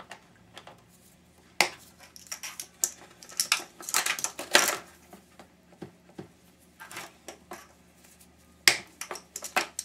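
Tools and small metal parts clinking and clattering on a workbench while a power washer is being dismantled. The knocks come irregularly, in a busy run about two seconds in and another near the end.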